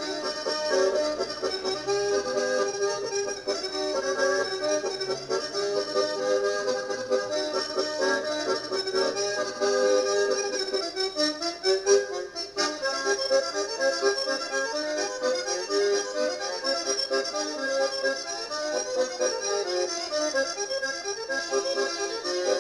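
Accordion music: a corridinho, the traditional folk dance tune of the Algarve, played as a continuous run of quick notes.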